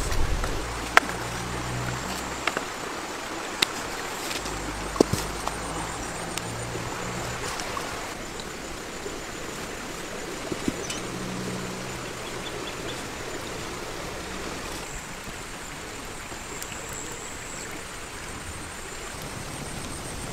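Steady rushing of a flowing stream, with a few sharp clicks and knocks in the first five seconds and a low rumble that comes and goes.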